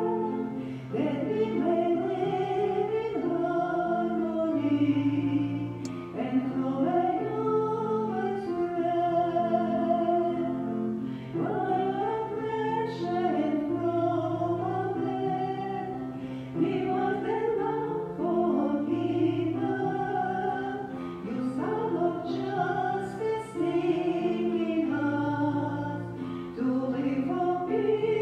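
Hymn singing over a sustained instrumental chord accompaniment: the entrance hymn at the start of Mass.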